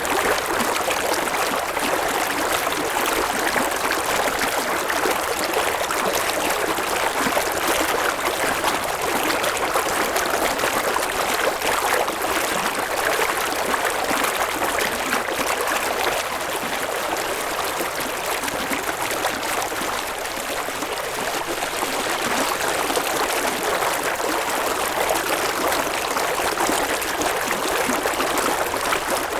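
River water flowing steadily over stones, an even rushing babble.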